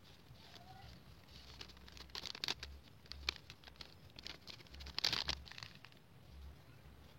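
Light rustling and scattered clicks of small items and plastic packaging being handled, with the loudest burst of rustling about five seconds in.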